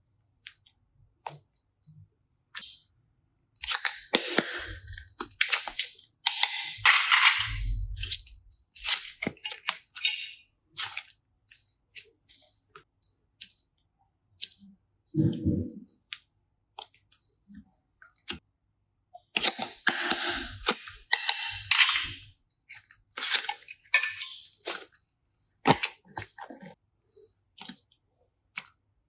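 Slime and clay being pressed and worked by hand, giving irregular crackles, sharp pops and clicks in two busy stretches, with a dull thump or two.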